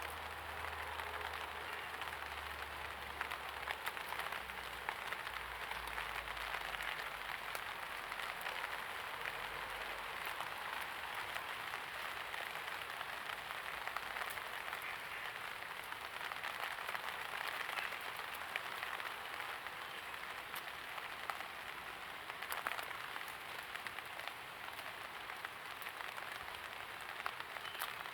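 Steady light rain falling on hard surfaces, a constant patter of many small drops.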